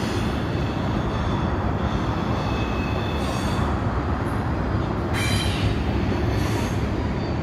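CSX freight train cars rolling steadily past in a continuous rumble of wheels on rails. Faint high wheel squeals come and go, the clearest a little after five seconds in.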